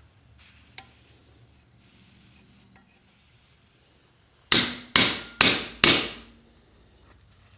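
Four quick hammer blows on a hot chisel, cutting into coil-spring steel, a little under half a second apart, each a sharp metallic strike that rings off quickly.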